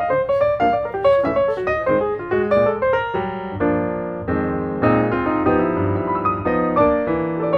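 Background piano music: a quick run of separate notes, then held chords from about three seconds in.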